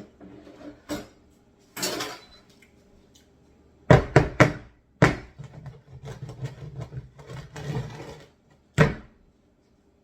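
Kitchen pans, bowl and utensils being handled: a run of sharp knocks and clatters about four to five seconds in and one more near the end, with scraping and rustling in between.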